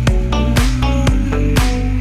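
Electronic dance-style background music with a steady drum beat and bass line.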